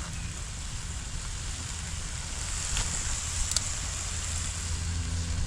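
Low, steady rumble of a passing train, growing louder near the end, with a steady high hiss over it.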